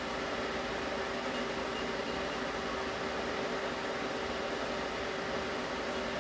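A fan running steadily: an even whooshing noise with a constant low hum.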